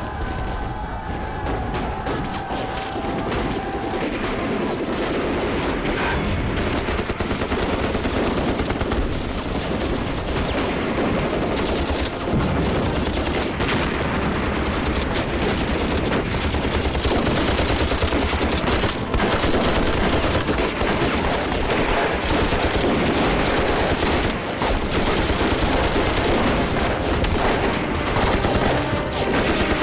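Battle gunfire: a dense, unbroken fusillade of many guns firing at once.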